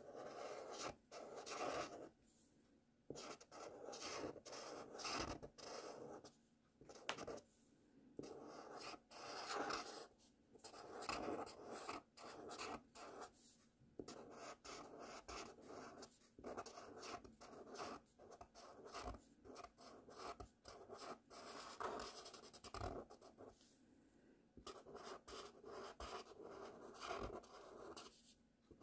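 Felt-tip oil marker nib scratching across paper as cursive letters are written, in irregular runs of strokes broken by brief pauses.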